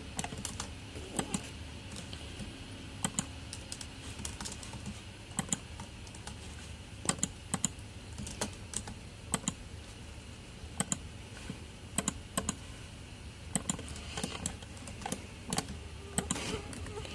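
Irregular clicking of computer keyboard keys and mouse buttons during 3D modelling work: single taps and quick clusters spaced a second or so apart.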